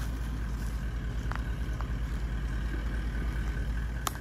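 Four-wheel-drive ute towing a caravan slowly across grass, its engine running low and steady. There is a sharp click just after four seconds in.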